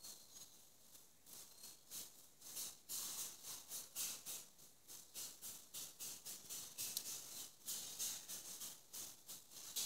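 A knife scraping the skin of a hanging pig carcass in short, irregular, repeated strokes.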